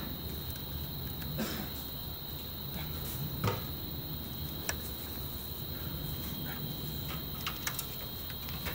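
A steady high insect trill, like crickets, with scattered light clicks and knocks, one louder knock about three and a half seconds in.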